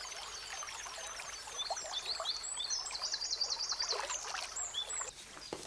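Small birds chirping in short, repeated high notes, with a rapid trill about three seconds in.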